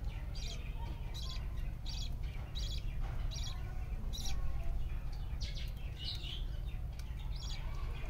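Budgies (budgerigars) chirping: a run of short, high chirps, one or two a second.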